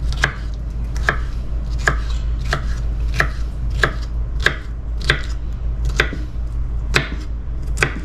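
Kitchen knife chopping small cucumbers on a wooden cutting board, dicing them with steady, even strokes, about three every two seconds.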